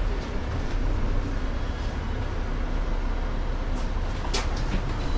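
Alexander Dennis Enviro 500 double-decker bus with its Mercedes-Benz OM936 diesel engine running at a low, steady rumble, with a couple of sharp clicks about four seconds in.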